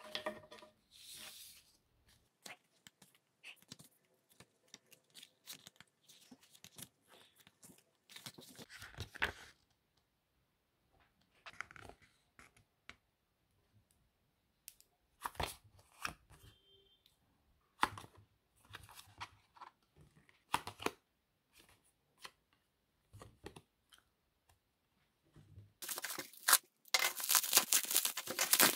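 Paper or plastic packaging being handled by hand: scattered small clicks and rustles, then a longer, louder stretch of tearing and crinkling near the end.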